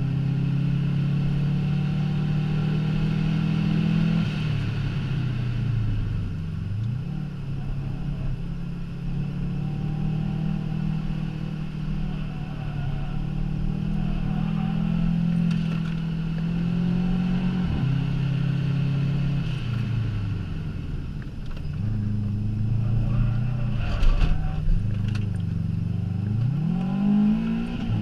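Subaru Impreza's flat-four engine under hard load, heard from inside the cabin. The revs drop and climb back about a quarter of the way in, dip twice more in the last third, and rise sharply just before the end. A sharp knock stands out about four seconds before the end.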